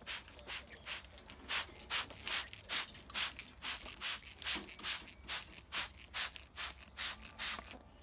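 Hand-held trigger spray bottle squirting water over a parrot's feathers: quick repeated hissing squirts, about three a second.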